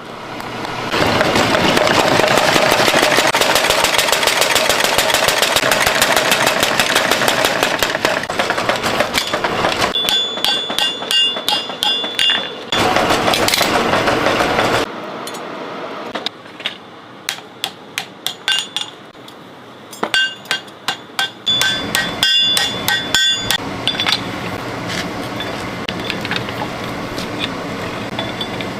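Blacksmith's hammer striking steel on an anvil: runs of sharp, ringing blows, some quick and some about three a second. They come between stretches of loud, dense clatter and quieter background noise.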